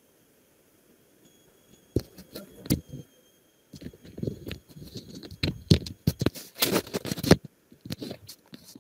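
Irregular clicks, scrapes and rustles of something being handled close to the microphone, starting about two seconds in and growing busier towards the end.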